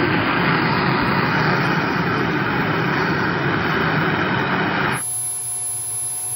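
Small gas-turbine jet engine with afterburner, mounted on a mini pickup truck, blasting at full power as a steady loud rush of air and flame. About five seconds in the sound cuts to a quieter, more distant take of the same jet, with a thin steady whine over its rush.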